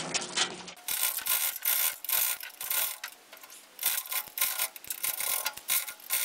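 Manual chain fall being worked to lower a heavy load: its ratchet and pawl clicking and the chain rattling in irregular bursts.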